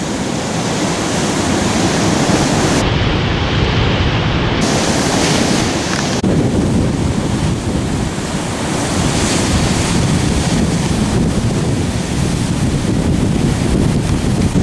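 Ocean surf breaking, a steady rushing noise, with wind buffeting the microphone. The sound shifts abruptly about six seconds in.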